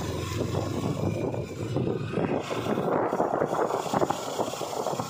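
Sport motorcycle's engine running as the bike is ridden along a rough dirt lane.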